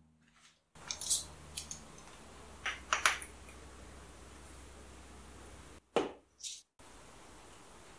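Sharp clinks and taps on a glass mixing bowl as dry ingredients (salt, then instant yeast) are tipped in: a few light clicks, a stronger pair of taps, then a louder knock near the end, over a faint steady hum.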